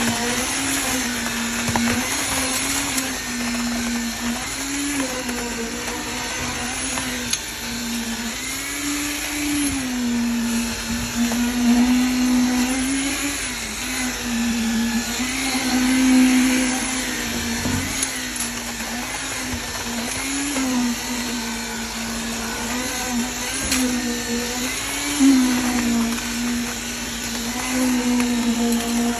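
Motor-driven machinery at a concrete pour running continuously with a steady whine whose pitch sags and recovers every few seconds, as under changing load.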